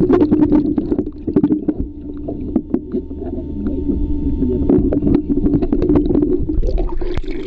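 Water sloshing around a camera held just below the surface, heard dull and without treble, with many small clicks and knocks and a steady low hum underneath.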